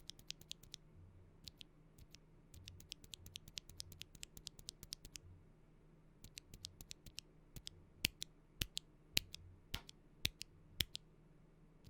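Unlubricated Akko Rose Red linear mechanical keyboard switch being pressed and released repeatedly, in its stock state. Quick runs of clicks give way, about eight seconds in, to slower, sharper single presses about every half second.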